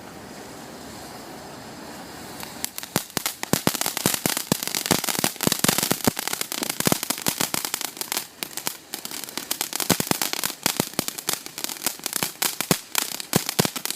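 Consumer firework going off: a steady hiss, then from about two and a half seconds in, a rapid, irregular run of sharp pops and crackles.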